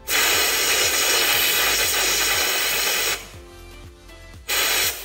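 Compressed-air blow gun blasting into the freshly tapped spark plug hole of an aluminium LS cylinder head to clear out the aluminium shavings: one long hiss of about three seconds, then a short blast near the end.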